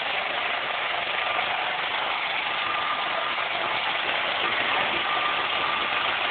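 iRobot Roomba 560 robot vacuum running: a steady whirring hiss from its vacuum motor and brushes, with a faint high whine that comes and goes.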